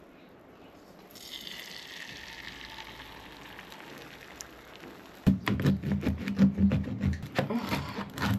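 Beaten egg sizzling in a hot frying pan, a soft even frying hiss that starts about a second in. About five seconds in it gives way to a bread knife sawing through a crusty loaf on a plastic cutting board, louder, with quick repeated rasping strokes.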